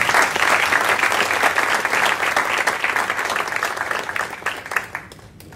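Applause from a small group of people clapping, thinning out and dying away near the end.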